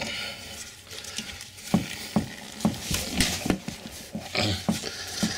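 A hand unscrewing and handling the flexible toilet supply line at its connection under the tank: scattered small clicks and taps, with a brief hiss about three seconds in.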